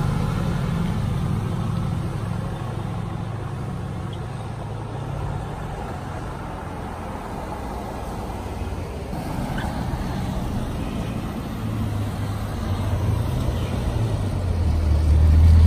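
A Mercedes-AMG GT's V8 engine pulling away and fading, then a few seconds of lighter passing traffic. In the last few seconds the Bugatti Chiron's W16 engine rumbles low and grows steadily louder as the car rolls up close.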